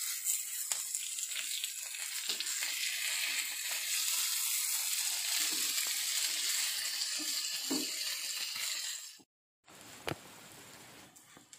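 Indian mackerel shallow-frying in oil in a nonstick pan, sizzling steadily, with a wooden spatula scraping and pressing the fish now and then. The sizzle cuts off abruptly about nine seconds in and comes back fainter, with a single click.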